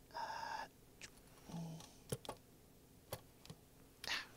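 Saxophone keywork and metal tweezers clicking: about half a dozen small taps and key clacks as the keys are pressed down to check a newly corked key tab, the sharpest near the end. A short breathy sound near the start.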